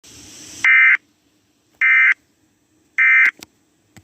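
Emergency Alert System SAME data tones: three identical short buzzing bursts, each about a third of a second long and about a second apart, the end-of-message signal that closes an EAS alert. A brief hiss comes just before the first burst.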